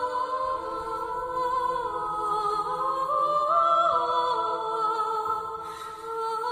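Background music: a slow, wordless vocal melody of long held notes that step up and down in pitch.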